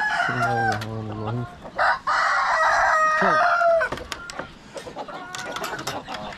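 A rooster crows once, a loud crow of about two seconds starting about two seconds in, with hens clucking around it.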